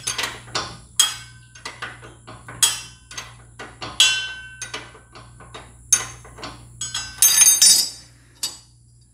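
Sharp metal clinks and knocks as the steel belt-retainer bar and its nuts are worked loose by hand under the mower's deck, with a louder burst of ringing metal clatter about seven seconds in.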